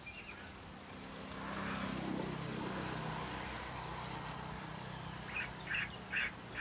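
A duck calling in a rhythmic run of short quacks, about two a second, starting near the end. Under it a steady engine hum from a vehicle sets in about a second in.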